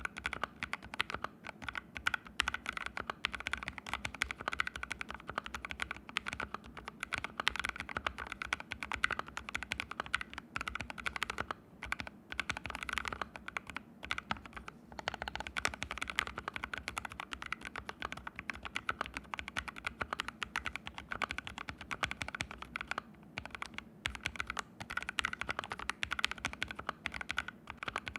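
Continuous fast typing on an ABKO AR61 mechanical keyboard fitted with fully lubed Haimu Sea Salt switches and no foam dampening pad, the keyboard resting on the floor. There are brief pauses in the keystrokes about twelve seconds in and again about twenty-three seconds in.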